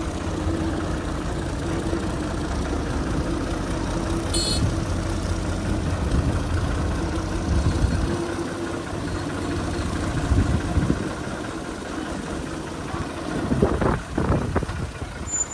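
Diesel farm tractor engine running steadily at low revs.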